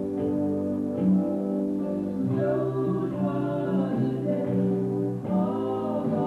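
Music with a singing voice: sustained chords, with a sung melody coming in about two seconds in and again near the end.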